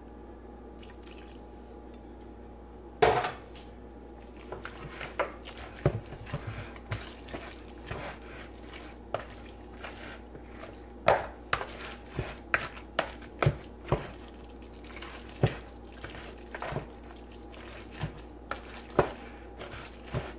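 A black plastic spoon stirring moist cornbread dressing in a mixing bowl, with irregular clicks and knocks against the bowl. There is one sharp knock about three seconds in.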